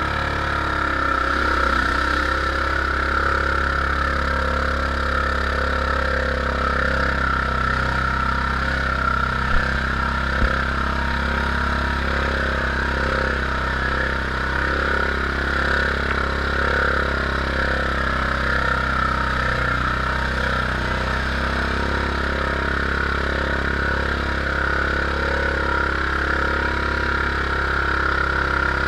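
Yamaha Grizzly ATV's single-cylinder engine running steadily while riding along a muddy, flooded trail. Two brief knocks about ten seconds in.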